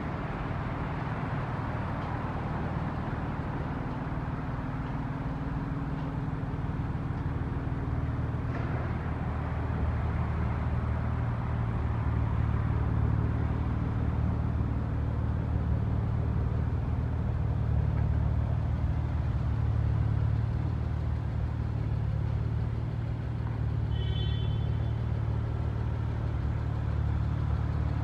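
2018 Porsche Macan GTS's twin-turbo V6 idling steadily, a low hum that grows louder about a third of the way in as the tailpipes come close. A brief high chirp near the end.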